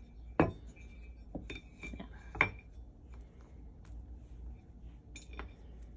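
A metal candelabra and small trinkets clinking and knocking as they are set down and rearranged, with two sharper knocks about half a second and two and a half seconds in.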